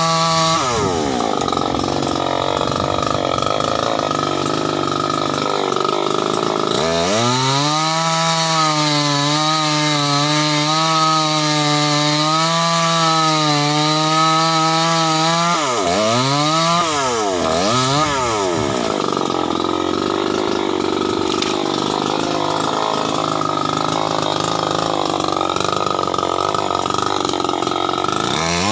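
Stihl 070 two-stroke chainsaw cutting timber: for much of the time the engine is pulled down and uneven under load in the cut, and for a stretch before the middle it runs free at full throttle with a steady high pitch. Just after the middle the throttle is dropped and opened again a few times.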